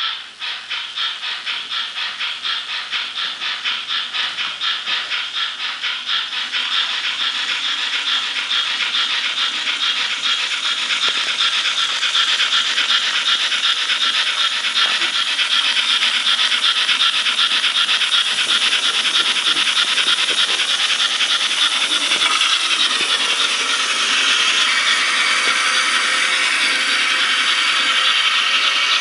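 Sound decoder of an HO-scale DRG Class 44 steam locomotive model playing steam exhaust chuffs through its small speaker as the model pulls away, the chuffs starting about two a second and speeding up until they run together into a fast, steady beat.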